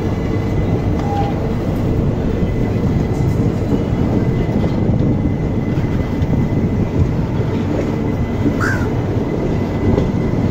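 Passenger train rolling along the track, heard from aboard the coach: a steady, dense rumble of the coach's wheels on the rails.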